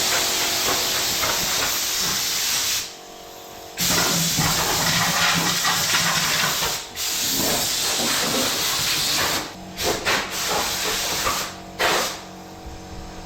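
Compressed-air blowgun blasting a loud, steady hiss, blowing settled grinding dust down. The air cuts off for about a second around three seconds in and briefly again near seven, then comes in short bursts near the end.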